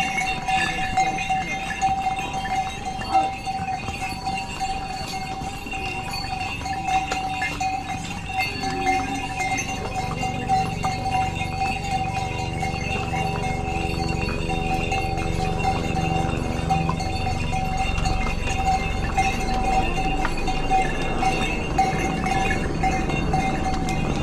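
Bells on trekking ponies jingling steadily, with hooves clip-clopping on a stone path. A low drone joins about ten seconds in.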